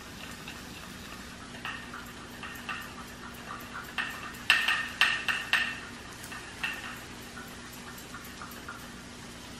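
Light clinking and tapping of kitchenware, repeated short clinks that ring at the same pitch, with a quick run of louder clinks about halfway through, over a faint steady hum.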